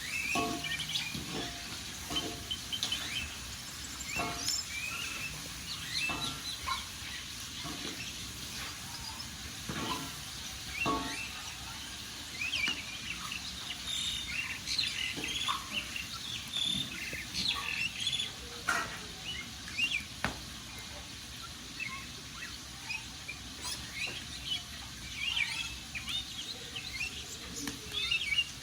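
Burning firewood crackling and popping, with birds chirping busily in short, high calls throughout.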